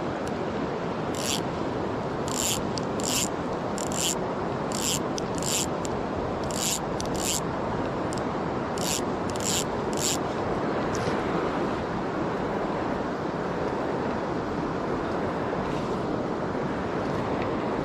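Steady wind noise on the microphone, with about a dozen short rasping scrapes in the first ten seconds.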